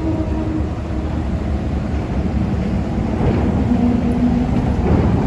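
Heavy vehicle engines running with a steady low rumble.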